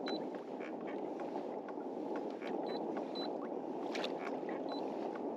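Water noise around a drifting fishing kayak: a steady wash with small splashes and ticks of water lapping against the plastic hull, and a few very short, faint high beeps.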